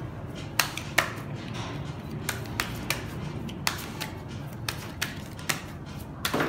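Deck of playing cards being shuffled and cut by hand, giving about ten sharp, irregularly spaced snaps and clicks as the cards strike each other.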